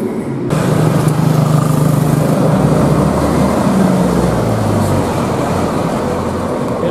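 Large coach bus driving past with its diesel engine running and tyre and road noise. The sound cuts in suddenly about half a second in, and the engine note drops after about four seconds as the bus moves away.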